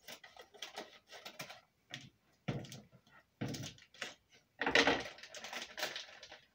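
Scissors snipping open an oxygen absorber packet, then foil Mylar bags and packaging being handled: a run of small clicks and rustles, with louder rustling bursts in the middle and loudest about five seconds in.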